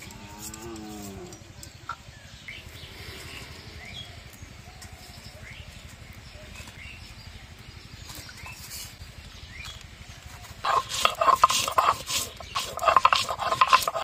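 Hand grinding stone worked back and forth on a grinding board to grind spice paste, in two loud runs of rapid grinding strokes starting about ten and a half seconds in. A short animal call sounds near the start.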